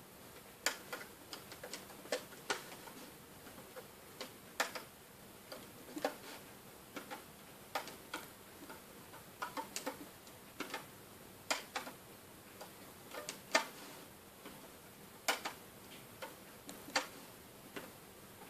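Irregular light clicks and taps of a plastic hook tool against the pegs of a clear plastic rubber-band loom, with the bands snapping as they are looped forward peg by peg.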